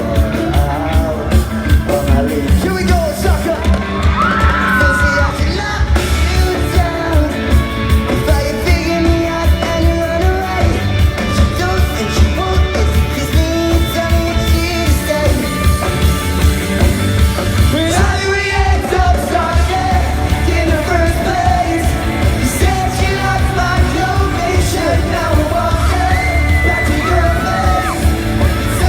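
Pop-punk band playing live: electric guitars, bass and a steady drum beat under lead singing.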